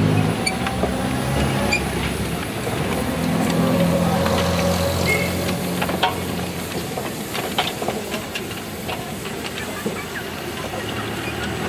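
Narrow-gauge 0-4-0 saddle-tank steam locomotive moving slowly, with a steady hiss of escaping steam and scattered clanks and clicks. A low hum comes and goes during the first half.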